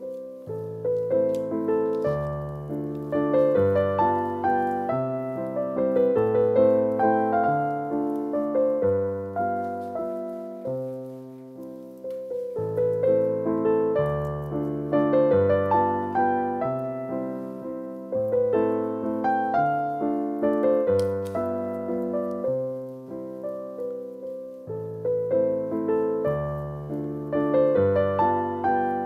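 Background piano music: a melody over low bass notes, the phrase repeating about every twelve seconds.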